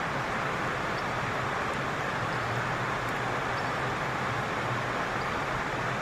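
Steady rushing background noise with a low hum underneath, even throughout with no distinct events.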